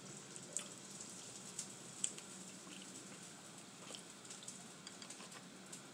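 Faint, scattered clicks and crackles of boiled, sauce-covered crawfish shells being cracked and peeled by hand, with a few sharper cracks in the first two seconds.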